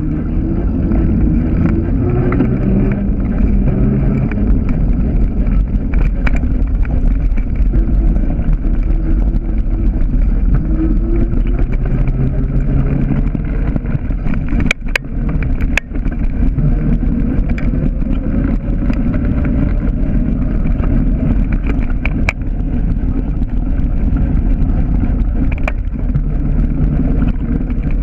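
Wind buffeting the microphone and tyre rumble of a bicycle riding along a path, with a low wavering hum underneath. Two sharp knocks about halfway through, as the bike goes over bumps.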